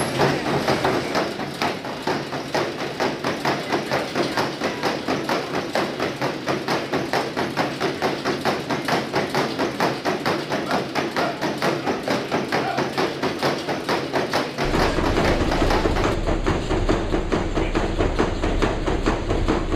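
Horse's hooves knocking in a fast, even beat on the moving belt of a horse treadmill. About fifteen seconds in, a low hum comes in under the hoofbeats.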